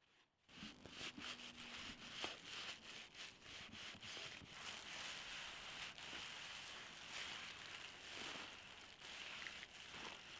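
Paper towel rubbing and rustling over a carved wooden axe handle in quick, repeated wiping strokes as Danish oil is worked into the wood. It starts about half a second in.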